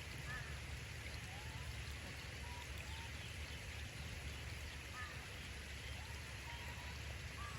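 Steady rain falling, an even hiss throughout, with a few faint short chirps now and then.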